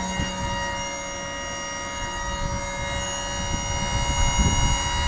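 A motor running with a steady, many-toned whine, starting to wind down in pitch at the very end, with some low knocks and clunks underneath.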